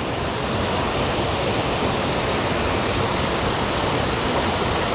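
Small waterfall in a mountain stream pouring into a pool: a steady, even rush of water.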